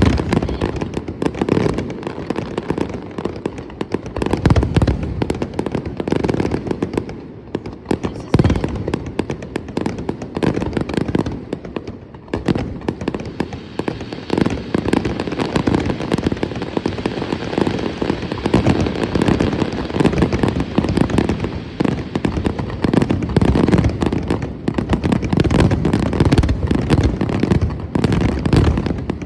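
Fireworks display in a sustained barrage: rapid overlapping bangs and crackles. It eases briefly about a quarter and about two-fifths of the way in, then grows denser through the second half.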